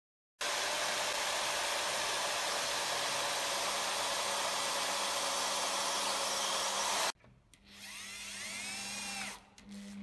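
A power tool runs loudly and steadily for about seven seconds and then cuts off. After a short gap, a corded electric drill speeds up and then slows down, with a rising then falling whine, as it drives a screw into a mortise lock's brass faceplate.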